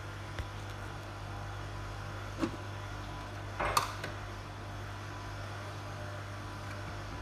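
A steady low hum with a few light knocks and clicks over it, the loudest a short clatter about three and a half seconds in.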